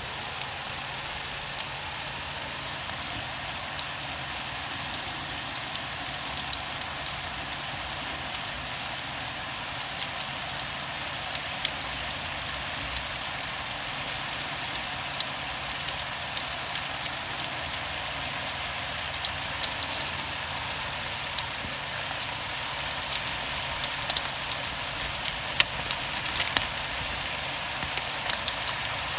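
Steady rain falling, with scattered sharp taps of single drops landing close by, more of them near the end.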